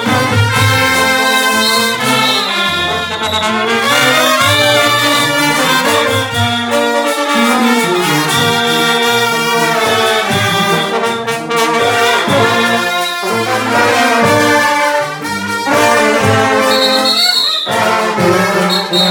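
A live band playing a tune, several instruments sounding together over a moving bass line.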